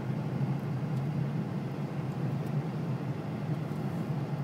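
Steady low drone inside a car's cabin while driving on a snow-covered road: engine and tyre noise.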